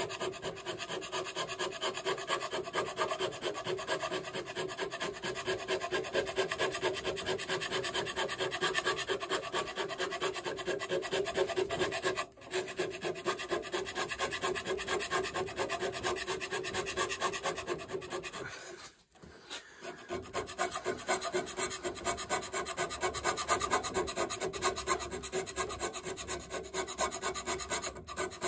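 Hand scraper with a carbide blade scraping the cast-iron toolpost seat of a lathe topslide in quick, repeated strokes: scraping in the seat for contact and alignment. The strokes break off briefly about twelve seconds in and pause for about a second about two-thirds of the way through.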